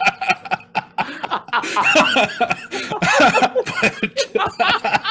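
Men laughing hard in repeated short bursts.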